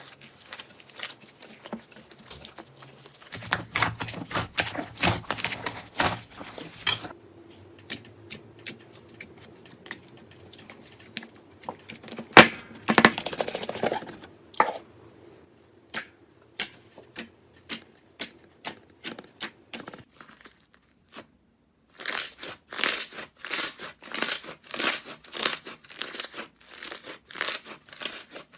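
Slime being squeezed and poked by hand, making wet crackling and popping clicks. Several clips follow one another, and near the end come rhythmic pops about two a second.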